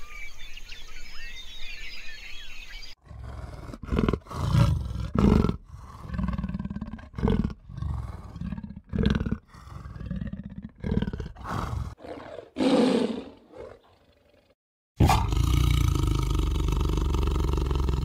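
A big cat growling and roaring in a string of short, loud calls, one every half second to a second, after a few seconds of birdsong; near the end a longer, steady growl of about four seconds.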